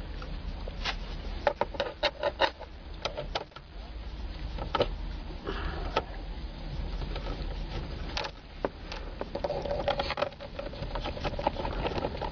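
A socket tool works out the 5.5 mm screws holding the plastic steering-column covers: scattered sharp clicks and knocks of metal on plastic. Near the end comes a steadier mechanical whirring.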